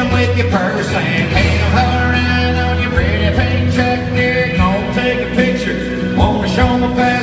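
Live country-style song: a man singing at a microphone while strumming an electric guitar through the hall's PA.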